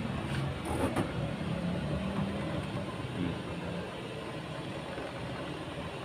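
Twin-tub washing machine's spin-dryer motor running and spinning the drum, a steady whirring hum with a couple of light clicks in the first second. The dryer spins very fast on its newly replaced capacitor.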